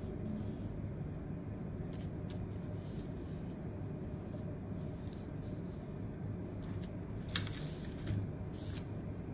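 Large calligraphy brush dragging across paper: short, irregular scratchy swishes of the bristles over the sheet, over a steady low background hum.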